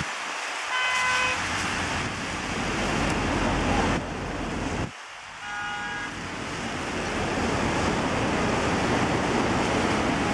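Car horns sound two short toots, one about a second in and another near six seconds, over a steady rushing noise from the traffic and the floodwater.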